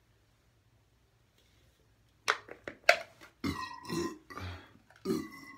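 Man belching loudly several times after chugging a carbonated canned drink, starting a little over two seconds in; before that, near silence.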